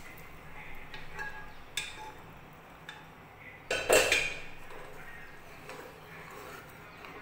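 Metal cookware clinking: a pot and a steel ladle knocking against a metal kadhai of chickpea curry. A few light clinks, then a louder clatter about four seconds in, with the ladle stirring the chickpeas afterwards.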